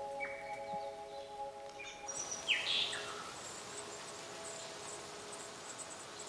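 Soft music with sustained tones and mallet notes fades out over the first two seconds, giving way to forest ambience with birds calling: a loud down-slurred call about two and a half seconds in, then faint high chirps and ticks.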